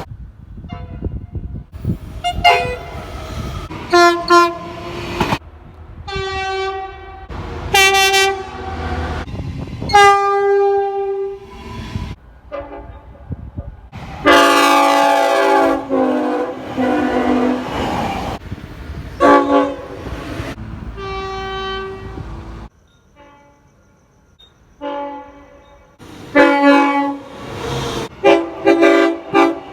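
Locomotive air horns sounding a run of short and long blasts, loud chords of several notes, the longest held about four seconds near the middle. A low rumble from the moving train runs beneath and drops away about three-quarters through, leaving the last few blasts over quieter background.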